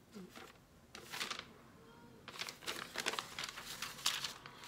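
Loose sheets of notebook paper rustling as they are shuffled and laid down, in a short bout about a second in and a longer one from about two and a half seconds in.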